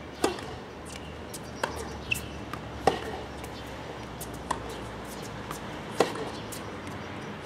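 Tennis ball struck back and forth by rackets and bouncing on a hard court during a rally: a string of sharp pops, roughly one every second and a half. The loudest pops come from the near player's strokes.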